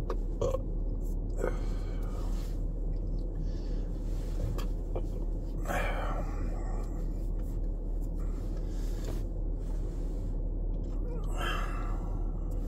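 A man breathing out heavily twice, about six seconds and eleven seconds in, over a steady low hum inside a car cabin.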